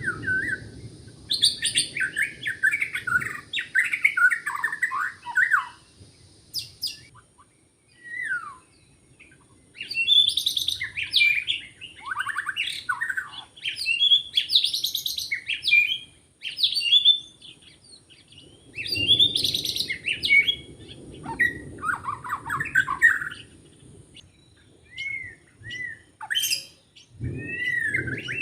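White-rumped shama (murai batu) singing: loud, rapidly varied whistled phrases in bouts of several seconds separated by short pauses, with shorter calls near the end.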